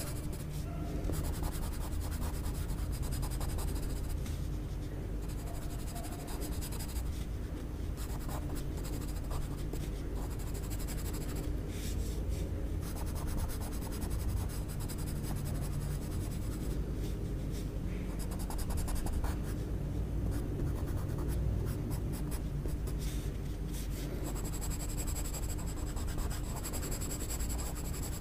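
Graphite pencil scratching steadily across paper as an area of a drawing is shaded.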